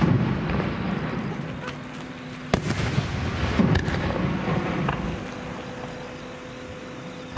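Japanese aerial firework shells bursting. There is a loud rumbling boom at the start and a sharp bang about two and a half seconds in, with rolling echo that dies away toward the end.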